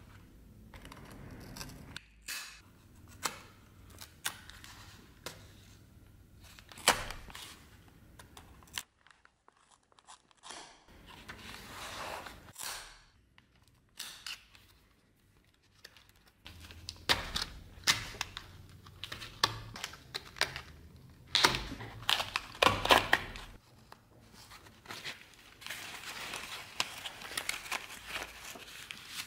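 Old leather scabbard covering being cut with a utility knife and then pulled away from its wire-wrapped wooden core: scattered sharp clicks, scraping cuts and tearing, ending in a steady crinkling rustle as the leather is peeled back.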